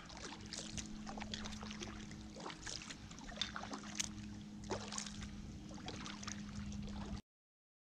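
Faint water sounds of a kayak on calm water: paddle drips and small splashes as short scattered ticks over a low steady hum. The sound cuts off abruptly about seven seconds in.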